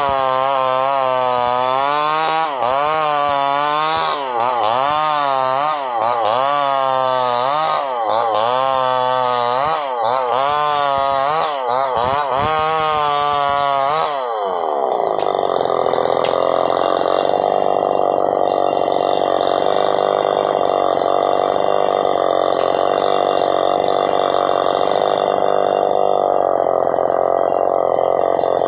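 Chainsaw ripping a log into boards, its engine pitch swinging up and down every second or two as the bar is worked back and forth and bogs under load. About halfway through the pitch drops and the engine settles into a steady, even note.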